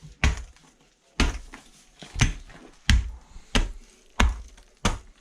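Rubble and broken stone backfill being tamped by hand: about seven heavy dull blows, roughly one a second, compacting the base of a stove foundation pit before concrete is poured.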